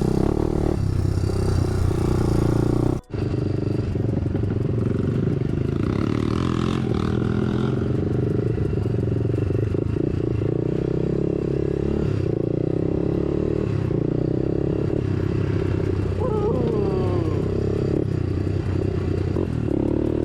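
Honda dirt bike engine running steadily under the rider on a trail, with some clatter from the bike, and a brief gap in the sound about three seconds in.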